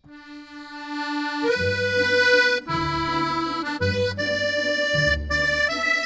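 Instrumental background music starting up: a melody of held, reedy notes that change about once a second, with a bass line joining about one and a half seconds in.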